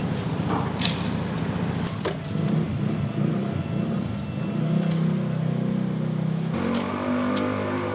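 A motor vehicle engine running steadily, with a few sharp metal clanks in the first two seconds as the food truck's hinged side panel is lifted.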